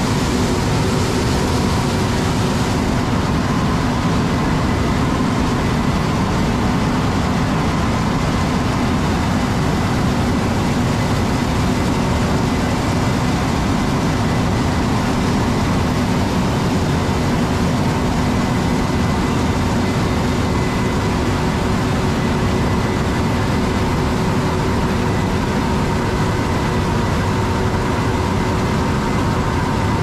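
John Deere S780 combine and the tractor pulling its grain cart running together while the combine harvests corn and unloads on the go: a loud, steady machinery drone with several held tones over a deep rumble. A high hiss eases about three seconds in.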